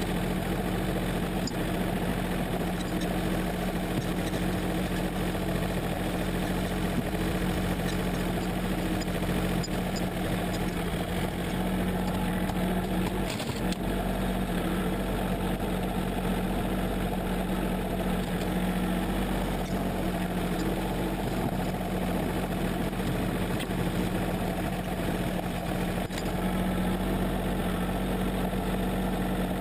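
John Deere 770 compact tractor's three-cylinder diesel engine running steadily while its front loader pushes and scoops snow.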